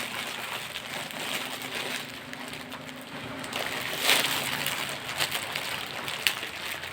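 Rustling and crinkling of packaging being handled as a parcel is unwrapped, with small clicks and a sharper crackle about four seconds in.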